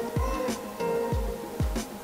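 Background music with a steady beat: a deep kick drum about twice a second under held notes.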